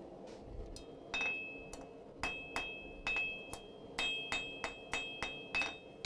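A blacksmith's hand hammer striking a hot iron staple on the anvil, about fourteen blows at an uneven two to three a second. Most blows leave the anvil ringing at a clear metallic pitch, with a steady low hum underneath.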